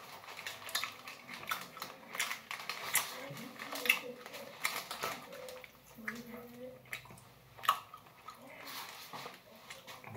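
Crinkling of a candy bag as a hand rummages in it for a gummy: a run of short, irregular crackles.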